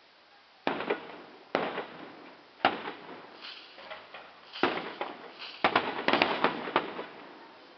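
Aerial fireworks shells bursting: four separate sharp bangs, each with a short crackling tail, followed about five and a half seconds in by a quick run of bangs close together.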